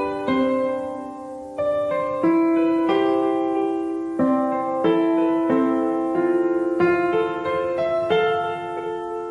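Background piano music: gentle keyboard chords and notes struck every second or so, each ringing out and fading.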